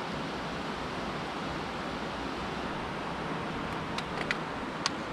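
Steady rush of river water spilling over a weir, with three short sharp clicks near the end.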